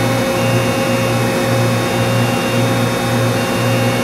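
Mori Seiki NLX2500SY/700 CNC lathe running under power: a steady machine hum and whine with a low drone that pulses about twice a second.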